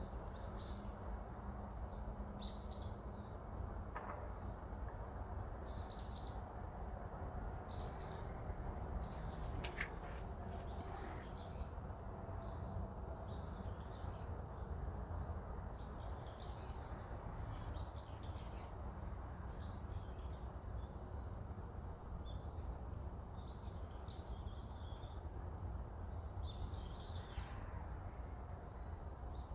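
Insects chirping: a high, even pulse repeating about two to three times a second, with softer trills below it, over a low steady rumble.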